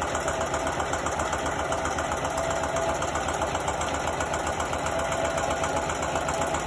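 Singer electric sewing machine running steadily at speed, stitching a folded feed-sack strap, with a fast even needle rhythm.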